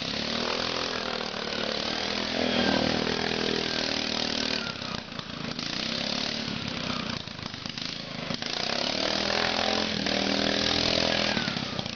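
Riding lawn mower's small engine running hard, buzzing and revving up and down as the mower spins through mud. The revs climb about two seconds in, sag in the middle, and climb again near the end.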